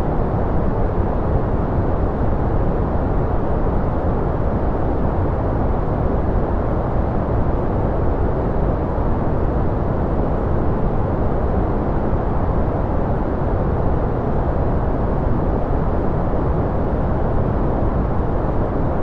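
Steady, even rushing noise of a white-noise track, deep rather than hissy, with little high-pitched hiss and no change in level.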